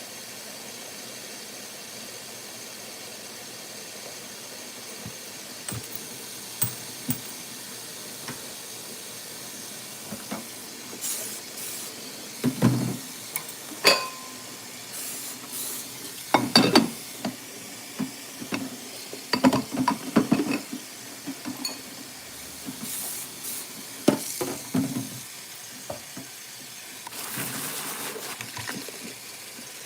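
Dishes, glasses and cutlery clinking and clattering as they are handled and set down, in scattered bursts over steady background noise. A brief rush like running water comes near the end.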